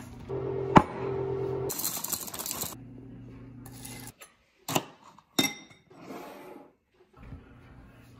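Household kitchen sounds: a single sharp click about a second in, a second of hissing noise, then two sharp clinks of a ceramic dish or spoon around the middle, over a steady low hum.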